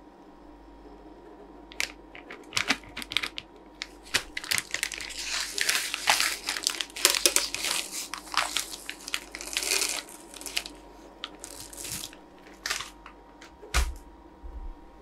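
Plastic candy bag crinkling and being torn open in gloved hands, starting about two seconds in, followed by sparser sharp clicks of small hard-shelled chocolate lentils dropping onto a steel plate, and a thump near the end.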